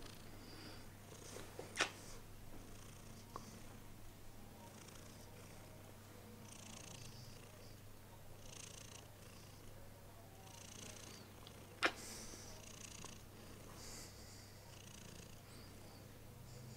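Tabby-and-white domestic cat purring steadily, with a breathy rise and fall every second or two, close to the microphone. Two short sharp clicks stand out, about two seconds in and again near twelve seconds.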